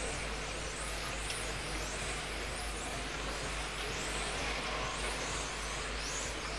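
Several electric 1/10-scale RC touring cars racing around an indoor track. Their motors make high whines that rise and fall as the cars accelerate and brake through the corners, over a steady hall noise.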